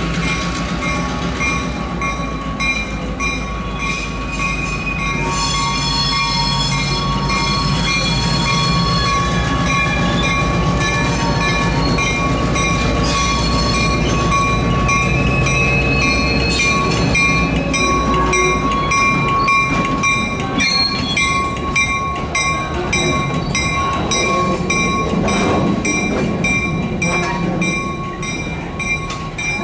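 A train running on track, with a sustained high squealing tone and its overtones held for most of the length over a heavy low rumble that drops away past the middle. Regular clicks come through more plainly in the second half.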